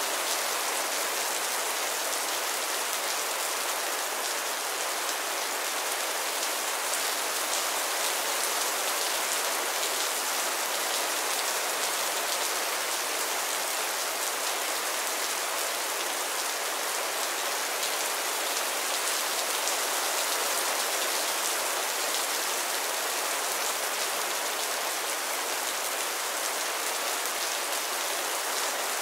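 Heavy rain falling steadily: an even hiss with a fine, dense patter of drops and little low rumble.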